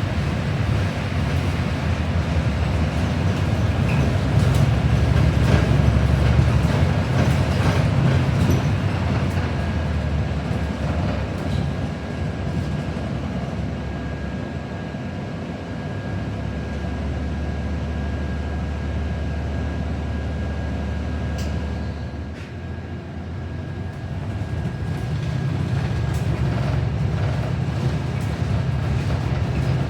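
Cabin noise of a New Flyer XD40 diesel city bus under way: the engine and the rumble of the road. The sound eases off about two-thirds of the way through, then builds again as the bus picks up.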